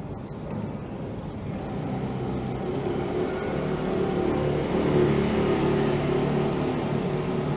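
Street traffic: a motor vehicle's steady engine hum grows louder over the first few seconds and peaks about five seconds in.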